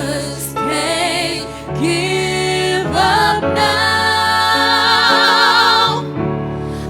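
Gospel music: voices singing runs over sustained accompaniment, then holding one long note with vibrato through the middle of the passage before it eases off near the end.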